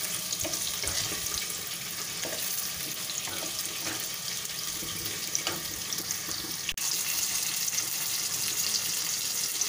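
Pumpkin slices sizzling in hot oil in a nonstick wok: a steady frying hiss with fine crackle, and a spatula scraping now and then as the slices are turned. The sound drops out for an instant about seven seconds in.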